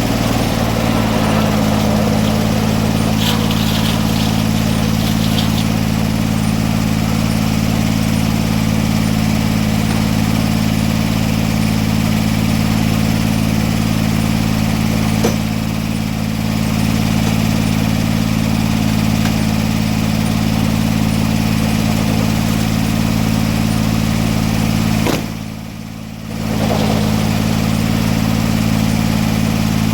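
Portable sawmill's engine running steadily at a constant pitch. Its sound drops off briefly about 25 seconds in, then resumes.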